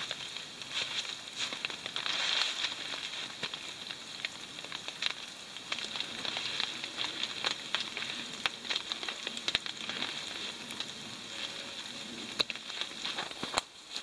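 Wet snow falling in the forest: a steady fine hissing patter with many small ticks, and a couple of sharper clicks near the end.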